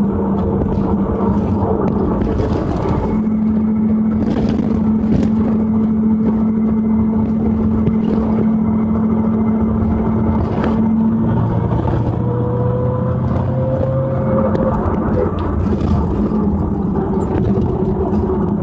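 2001 Pontiac Trans Am with LS1 V8 driving, a steady drone of engine, drivetrain and road noise with pitched tones. A whine rises in pitch about two-thirds of the way through. This is the rear-end noise being traced, still there after new axle shaft bearings on both sides and fresh 75W-90 synthetic gear oil.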